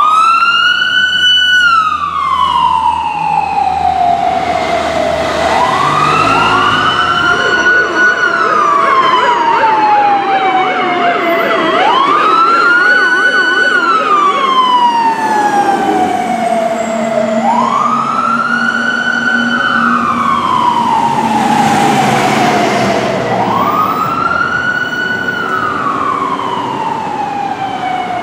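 Sirens of a fire department rescue ambulance and fire engine responding, mostly slow wails that rise quickly and fall away slowly. Two sirens overlap at times, and in the middle they switch to a fast yelp.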